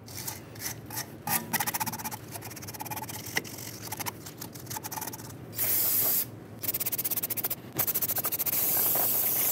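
A shop rag scrubbing and wiping a rusty brake backing plate and axle hub, then an aerosol can of brake parts cleaner sprayed in a few hissing bursts, the last one long and steady.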